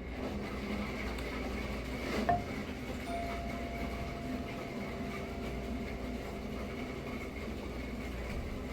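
Steady restaurant room hum with one sharp clink about two seconds in, a utensil against a dish, ringing briefly.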